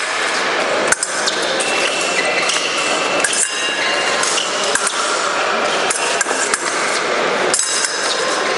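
Épée blades clinking and ringing in short metallic pings, mixed with sharp knocks of feet on the metal piste, over the steady background noise of a large hall.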